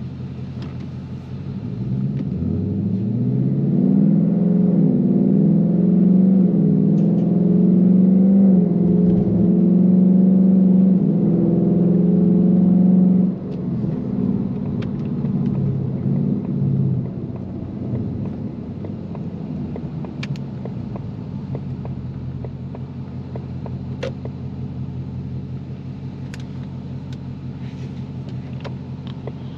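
Ford Mustang GT's 5.0-litre V8 heard from inside the cabin, pulling hard from a standstill. Its note climbs in several sweeps as the 10-speed automatic upshifts, then holds a steady loud drone for several seconds. The throttle is lifted sharply about 13 seconds in, and the engine settles to a quieter, steady cruising rumble.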